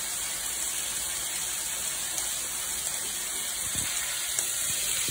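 Chopped vegetables frying in oil in a pan, a steady sizzle, with a hand pepper mill grinding pepper over them.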